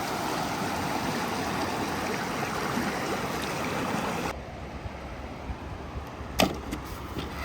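Steady rush of running water that cuts off abruptly about four seconds in. A quieter low rumble follows, with a single sharp knock a couple of seconds later.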